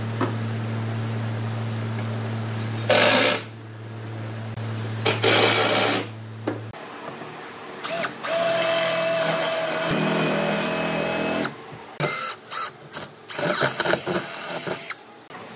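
Cordless drill boring holes in pine boards with a Forstner bit, running in several bursts with one longer steady run near the middle.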